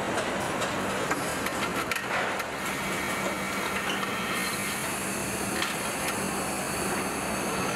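Truck assembly plant floor noise: a steady machinery hum under a hiss of running equipment, with scattered clicks and clatter of power tools.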